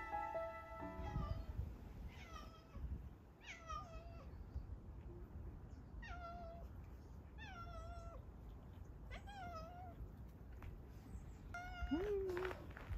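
A domestic cat meowing over and over, about seven short calls that bend up and down in pitch, one every second or two, with a lower, rising call near the end.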